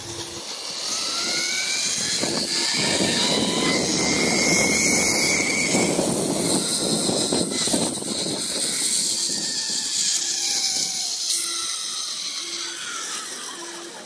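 Zipline trolley pulleys running along the steel cable, a whirring whine that slides up in pitch as the ride picks up speed and back down as it slows near the end, over a loud rushing noise.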